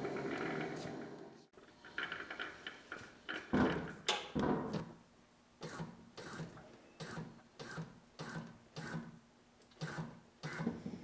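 A steady low rumble cuts off abruptly about a second and a half in. Then a brush scrubs a greasy milling-machine gearbox under a parts washer's solvent stream in short strokes, heavier for a second or so and then about twice a second, over a faint steady hum.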